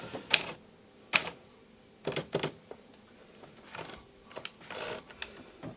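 Manual typewriter being typed on, a machine just repaired and being tried out: separate keystrokes at an unhurried, uneven pace, about eight or nine in all.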